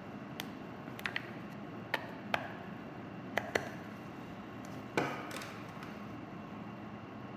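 Light plastic clicks and taps as batteries are fitted into a Garmin GPSMAP 64st handheld GPS: about eight sharp clicks over the first five seconds, the loudest about five seconds in with a brief ring after it.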